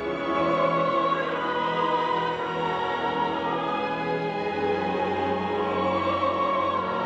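Symphony orchestra and voices singing in operatic style, holding long sustained chords.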